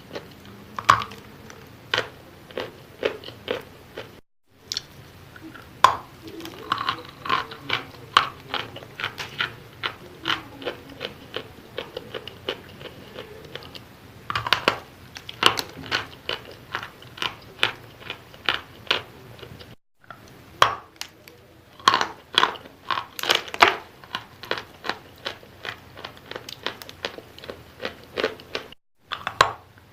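Close-miked biting and chewing of wet chalk: a dense, irregular run of crisp crunches, several a second, with brief total silences about four seconds in, about twenty seconds in and near the end.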